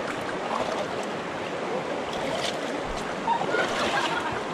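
Steady rush of the North Fork of the Virgin River flowing over its rocky bed.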